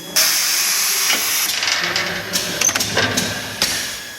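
Diamond segment welding machine for gang-saw blades working: a sudden loud hiss sets in at once, thins out after about a second and a half, and is followed by several sharp clicks and knocks.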